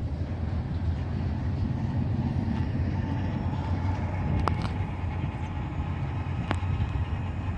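Steady low rumble of a freight train's last covered hoppers rolling away on the rails, with two sharp clicks a couple of seconds apart about halfway through.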